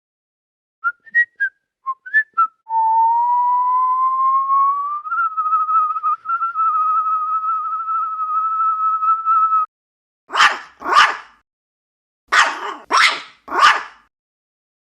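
Human whistling: a few short chirping whistles, then one long pure whistle that rises slowly and levels off. Near the end a dog barks five times, twice and then three times.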